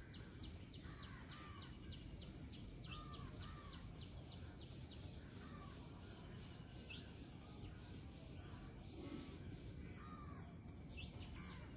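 Faint bird calls: many quick high chirps repeating throughout, with a few lower curving call notes now and then, over a steady high insect buzz.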